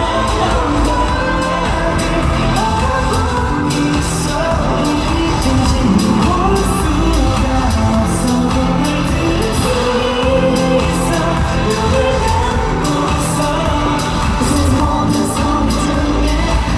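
Loud live K-pop song played through a concert sound system, with a heavy bass beat, recorded from within the audience.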